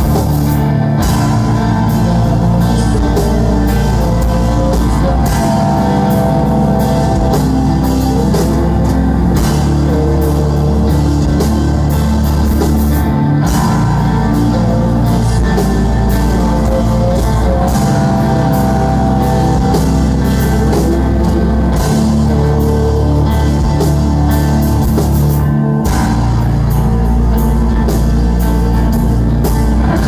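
A post-hardcore band playing loud live, with electric guitar, bass and drum kit, heard from the audience. The band stops for an instant twice, about 13 and 26 seconds in.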